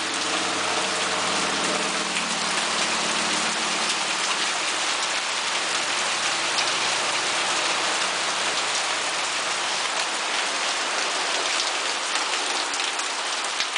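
Hail mixed with heavy rain pelting down steadily onto surfaces during a hailstorm.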